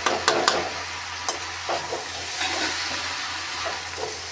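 A spatula stirring and tossing noodles in a hot kadhai, scraping and knocking against the metal several times in the first second or two, over a steady sizzle of frying.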